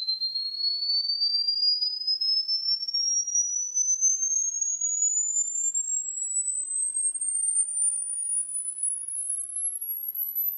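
Sine-wave test sweep played through a Nakamichi 700 II cassette deck: a single pure tone gliding steadily upward from a high whistle to a very high pitch, its loudness wavering slightly as it climbs. It is a frequency-response check of the deck.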